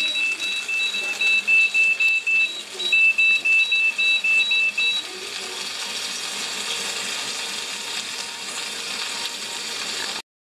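EasyBBQ wireless meat thermometer's alarm beeping rapidly, about four high beeps a second, with a short break about two and a half seconds in; it stops about halfway through. The alarm signals that the probed steak has reached its set target temperature. A steady hiss follows.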